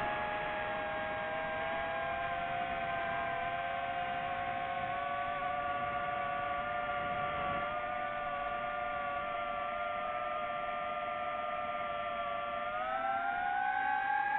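DJI FPV drone's motors and propellers whining at a few steady pitches over a hiss. The pitch glides up near the end as the motors speed up.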